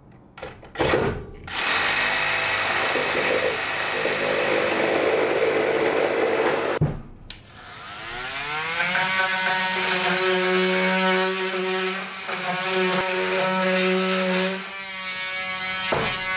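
Cordless drill boring into timber framing in two long runs: a few short blips, then about five seconds of steady drilling. After a brief stop, the motor whine rises in pitch and holds steady for several seconds before dropping near the end.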